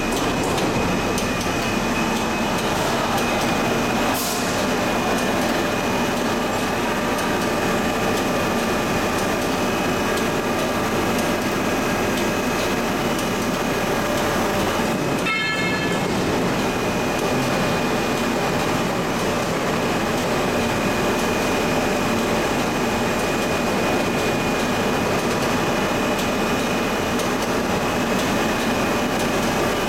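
Foshan Keli SJ135/150 twin-screw PS sheet extrusion line running: a steady industrial machinery din with a constant high whine, briefly dipping about halfway through.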